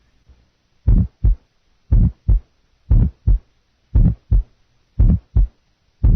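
Stethoscope recording of a heart beating about 60 times a minute, each beat a lub-dub pair of first and second heart sounds, with a heart murmur.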